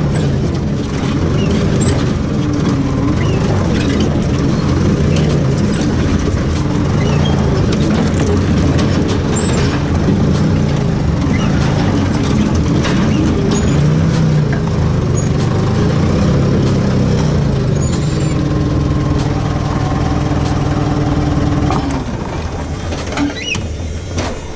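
Forklift engine running loud as the machine drives, revving up and down, with frequent sharp clicks and rattles; the engine eases off about 22 seconds in.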